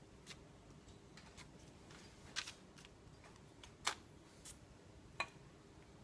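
Faint, scattered light clicks and taps, about half a dozen spread out with the clearest two in the middle, from a pastry brush working between a small glass bowl of beaten egg and a braided challah dough as egg wash is brushed on.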